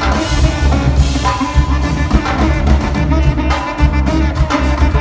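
Live band playing: saxophone and tuba over a drum kit, with a heavy tuba bass line under busy drumming.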